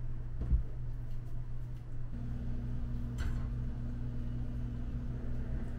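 Kitchen utensil sounds as syrup is strained through a metal sieve into a bowl: a knock about half a second in and a light clink about three seconds in. A low steady hum runs underneath, and a second steady appliance hum joins about two seconds in.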